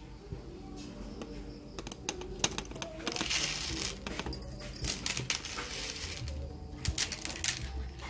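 Ground coffee being put into a moka pot's aluminium filter basket: a run of light clicks and taps, with a short rustling rush of grounds about three seconds in and more clicking near the end.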